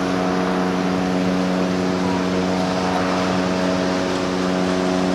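Deep, steady blast of a large cruise ship's horn, held at one pitch: the long whistle signal sounded as the MSC Bellissima leaves its berth.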